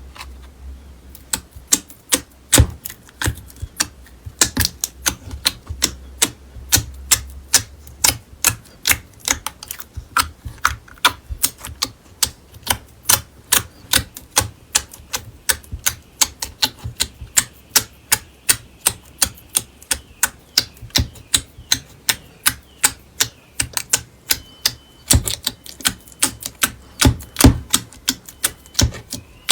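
Slime being pressed and worked by hand, giving a rapid, uneven run of sharp clicks and pops, about two or three a second.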